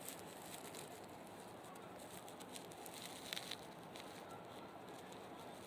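Faint room tone with scattered soft clicks, and a couple of slightly louder ticks a little past three seconds in.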